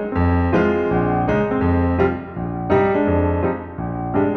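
Background piano music, chords and low bass notes struck in a steady rhythm.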